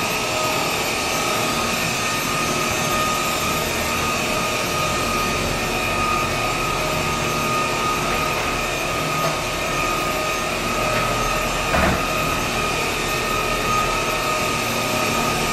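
K9 Reliance cordless stick vacuum running steadily over a vinyl floor: a constant motor whine over suction hiss, with one brief knock about twelve seconds in.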